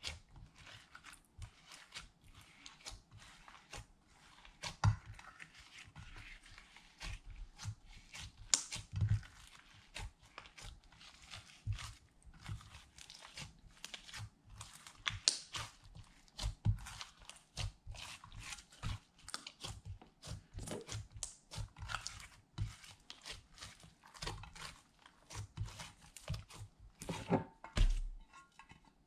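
Hands kneading and pressing glitter slime in a glass baking dish: irregular wet crackles, pops and squishes. A louder thump near the end as the slime drops out onto the counter.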